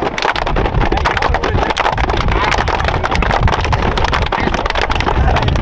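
A football team in a tight huddle, players clapping and shouting together in a rowdy team chant, with a dense patter of claps and a heavy low rumble.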